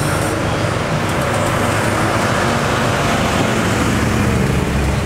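A car engine running at low revs in slow traffic, a steady low exhaust note.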